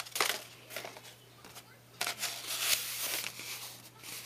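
Rolled paper tubes being handled, the paper rustling in two bursts, one at the start and a longer one about two seconds in, over a faint steady electrical hum.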